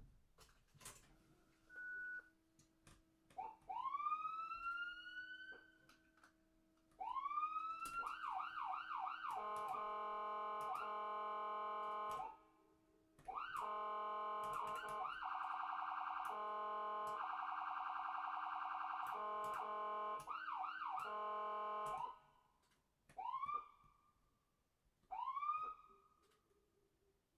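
Ambulance's electronic siren cycling through its tones. It starts with slow rising wails, switches to fast repeated yelps, then gives long steady blaring tones broken by two short gaps, and near the end sounds a few short separate rising whoops.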